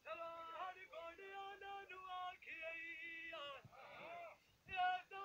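A man singing a Punjabi dhola, holding long steady high notes in phrases with short breaks between them.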